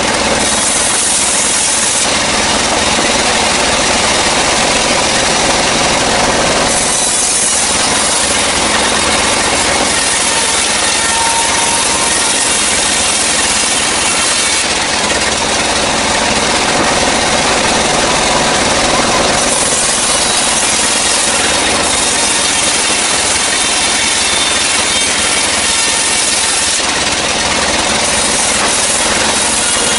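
Sawmill band saw cutting through a dry, long-felled kruing log: a steady, loud rasping run, growing brighter and hissier in stretches of a few seconds, four times.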